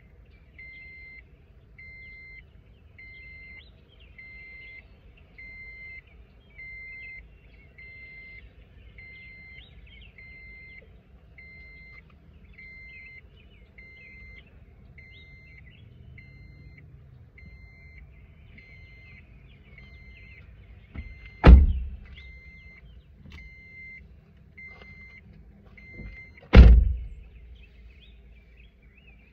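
Car's door-open warning chime beeping steadily about once a second, then two car doors slamming shut about five seconds apart; the chime stops after the second slam.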